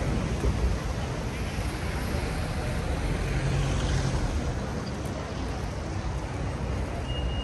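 Busy city street on a wet evening: a steady hiss of traffic and tyres on wet road, with people's voices mixed in.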